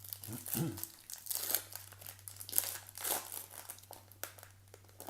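Plastic wrapper of a 2018 Bowman baseball card pack crinkling as it is torn open and handled, in irregular crackles.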